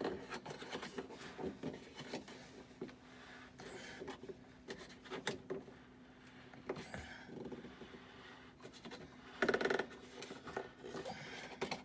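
Screws being tightened into a washing machine's back panel: a run of small clicks, scrapes and rubbing from the screwdriver and the panel, with one louder burst about nine and a half seconds in. A faint steady hum runs underneath.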